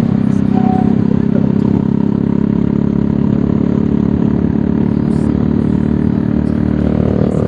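Bajaj Pulsar 220's single-cylinder engine running through an aftermarket SC Project exhaust, ridden at low, steady speed with an even exhaust note.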